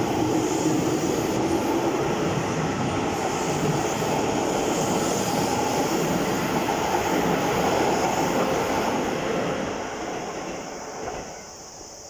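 Keisei 3700 series electric commuter train running past close by, a steady loud rush of wheels on rail and running gear. The sound dies away over the last two seconds or so as the end of the train goes by.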